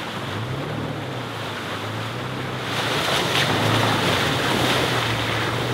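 Toyota FJ Cruiser's V6 engine running with a low drone that rises and falls as it crawls over a muddy track. Its tyres splash and hiss through muddy puddles, louder from about three seconds in.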